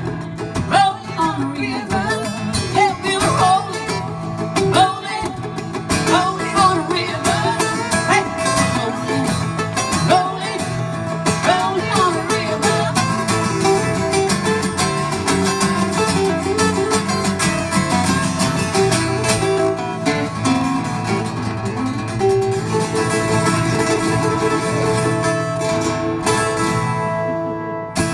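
Two guitars played together live, strummed and picked, with the piece closing on a ringing chord near the end.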